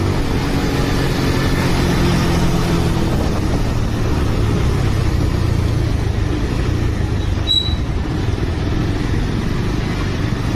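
Motorcycle riding and slowing down, engine and wind noise on the rider's camera; the engine's steady note fades over the first few seconds as the speed drops from about 50 km/h to walking pace. A brief high chirp about seven and a half seconds in.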